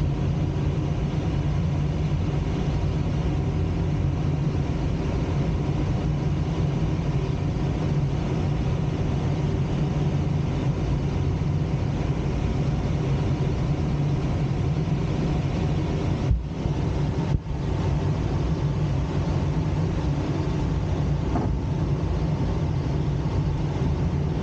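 Steady rush of air over a glider's canopy and cockpit in flight, with two brief dips about two-thirds of the way through.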